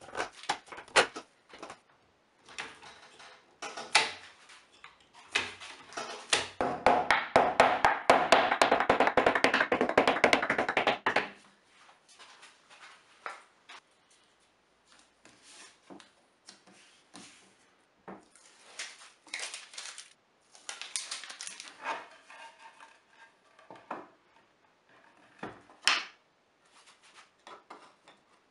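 Hard wooden pieces and workshop tools being handled on a bench: scattered knocks and clatter, with a stretch of rapid, dense clicking from about six to eleven seconds in.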